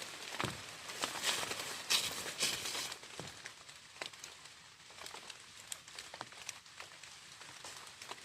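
Irregular light taps and crinkling rustles, loudest and densest from about one to three seconds in, then sparser ticks.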